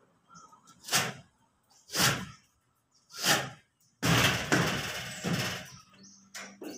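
Ceiling board being fitted against a steel ceiling frame: three short hollow knocks about a second apart, then a longer scraping rush that fades out.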